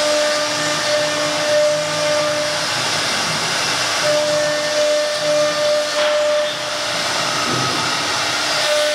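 Spindle of a 1325 CNC wood router cutting a wooden sheet: a steady loud hiss of cutting noise with a high whine over it that drops out twice and comes back.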